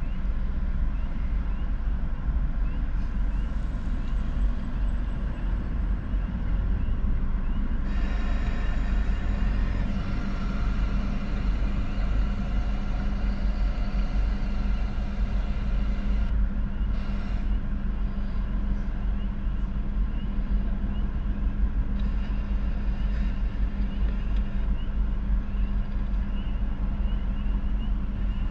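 Steady low rumble of idling vehicle engines heard from inside a car, with a droning hum that grows stronger from about eight to sixteen seconds in.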